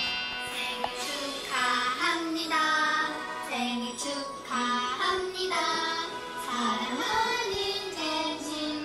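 Background music with a singing voice carrying the melody in short phrases.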